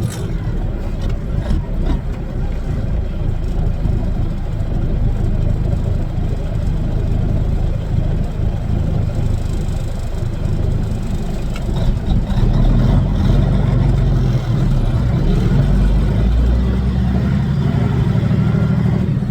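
Kenworth W900's Caterpillar diesel engine running steadily as the truck drives, the low engine sound growing heavier about twelve seconds in.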